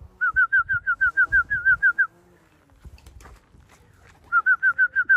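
A rapid series of short, high whistled notes, about six a second, each falling slightly in pitch. A run of about two seconds is followed by a gap, then a second, shorter run near the end.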